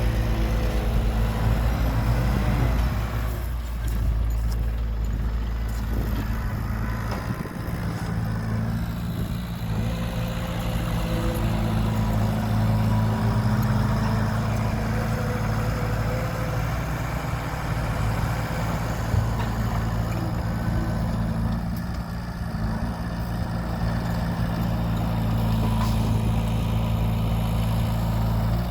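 Heavy diesel engines of earthmoving machinery running steadily under load, a deep hum with a noisy rumble over it.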